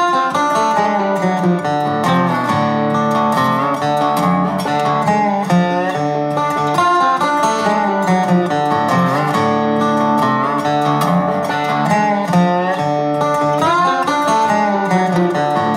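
Guitar-led instrumental music with plucked and strummed guitar notes and some bending, sliding notes, at a steady level.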